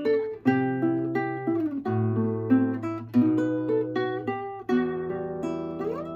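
Cremona 4755 classical guitar with nylon strings and a solid cedar top, played fingerstyle: a plucked melody over ringing bass notes, with one note sliding upward near the end.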